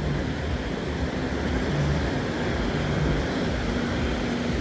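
Beach ambience: a steady rush of wind and surf, with the faint bass notes of party music playing some way off.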